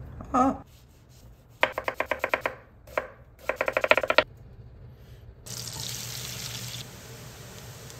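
Chef's knife chopping a shallot on a cutting board in two quick runs of sharp strokes, about eight or nine a second, after a brief pitched sound right at the start. About five and a half seconds in, minced shallot goes into hot oil and butter in a pan and starts to sizzle steadily.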